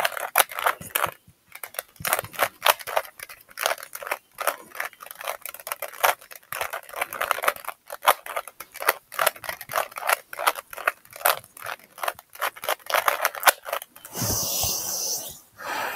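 A Rubik's cube being turned fast by hand: a quick, uneven run of plastic clicks, several a second, as the layers snap round during a speed-solve. The clicking stops about two seconds before the end, where a short rushing noise takes over.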